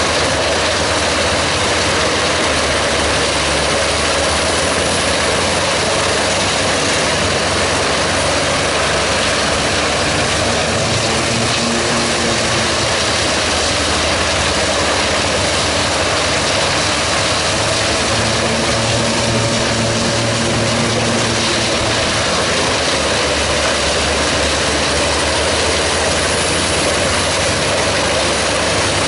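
Giant truck-mounted wood chipper running under load, chipping logs fed in by its crane and blowing the chips out of the discharge spout. A loud, steady machine noise whose engine note shifts slightly now and then as logs go through.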